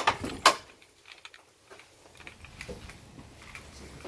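Two sharp clacks about half a second apart as a wooden fence gate is unlatched and swung open, then faint footsteps.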